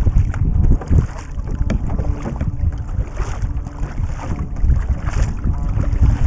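Wind buffeting the deck-mounted camera's microphone in a steady low rumble, over the splash and drip of double-bladed kayak paddle strokes and water along the hull.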